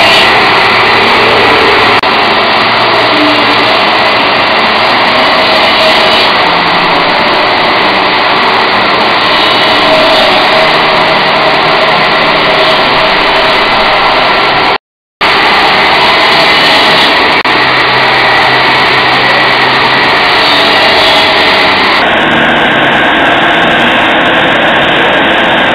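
CNC bridge saw's disc blade cutting into a turning stone cylinder: a loud, steady mix of motor running and grinding. The sound drops out for a moment about fifteen seconds in.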